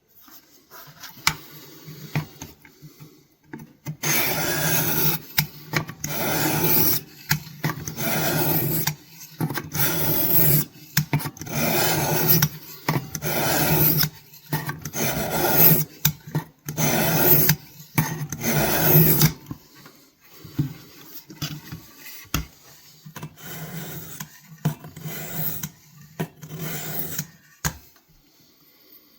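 A pocket-knife blade worked by hand against an abrasive, scraping back and forth. Long, loud strokes come every second or so for about fifteen seconds, then lighter, shorter strokes follow.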